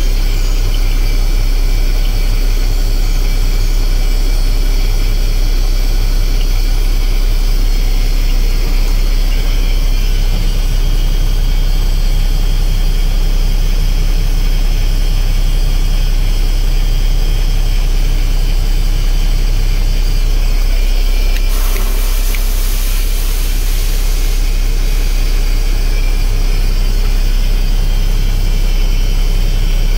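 Mack 12.0-litre AMI diesel engine of a Mack Granite dump truck running steadily, heard from inside the cab, with a few seconds of hiss a little past the middle.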